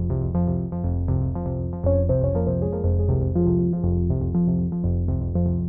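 Background music: a quick, even run of short notes over a steady low bass line.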